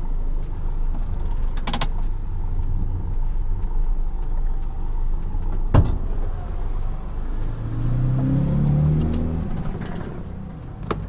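Vehicle engine running steadily, its pitch rising and falling briefly near the end, with a sharp click early and a heavy thump about six seconds in.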